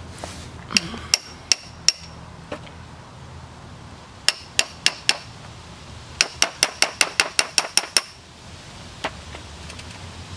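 Hammer striking a cold chisel to break apart a fired plaster casting mold. Sharp metallic taps with a brief ring come in bursts: four about a second in, four more around four seconds in, then a quick run of about ten.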